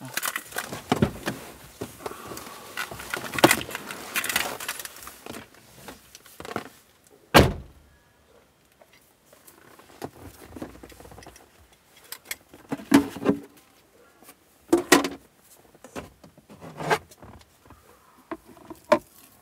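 Objects handled inside a car: rustling, clicks and rattles, one sharp loud thud about seven seconds in, then a few separate knocks in the second half, the last as a plastic cutting board is set down.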